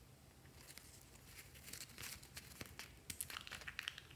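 Paper of a small spiral notepad tearing and crinkling in the hands: a run of quick, light crackles that grows denser near the end and finishes with a sharp snap.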